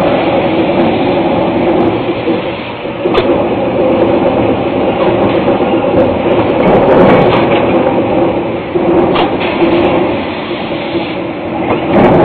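Hot steel forging cell with a robot-fed eccentric forging press, making a loud, steady mechanical hum and clatter. A few sharp knocks come through it, one about three seconds in and another around nine seconds.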